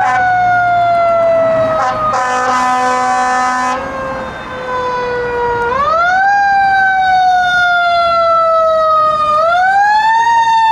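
Fire engine siren wailing: the tone falls slowly, then sweeps back up quickly, twice. A steady horn blast of about a second and a half sounds over it about two seconds in.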